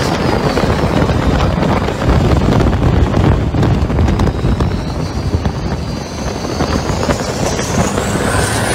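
Turbocharged diesel engine on a long-tail river boat running hard under way, a loud steady drone, with a high whine that drops off early on and rises again near the end.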